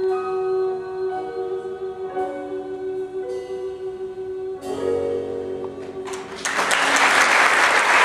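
Closing bars of a musical-theatre ballad: a long held note over soft accompaniment, then a final chord about four and a half seconds in. Audience applause breaks out about six and a half seconds in and grows louder.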